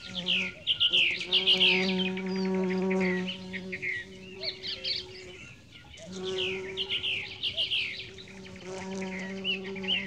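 Birds chirping and twittering over the steady buzz of a flying insect. The same stretch of sound starts again about six seconds in, like a looped meadow-ambience track.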